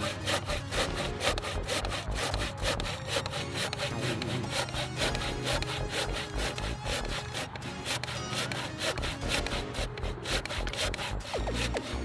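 Hand saw cutting through a treated-lumber post, with steady back-and-forth strokes.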